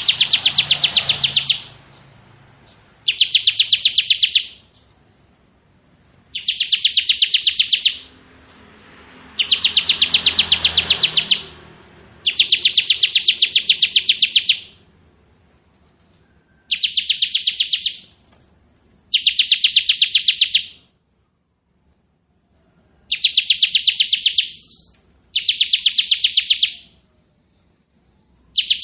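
Bar-winged prinia (ciblek) singing its fast, drill-like 'ngebren' trill: about nine bursts of rapid, evenly spaced high notes, each lasting one to two seconds, separated by short pauses.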